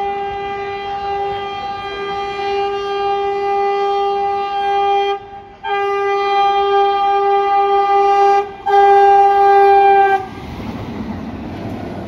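Indian Railways train horn held in long, steady-pitched blasts as the train approaches. It breaks off briefly twice, grows louder, and stops about ten seconds in. A steady rushing noise follows.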